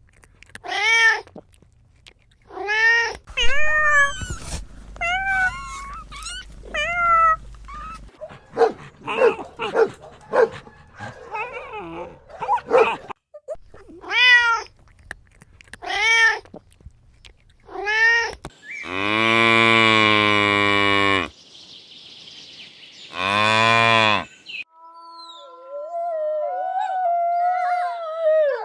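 A cat meowing over and over, about a dozen short meows, some sliding up and down in pitch. Then come two long, steady calls from a larger animal, and a wavering, howl-like call starts near the end.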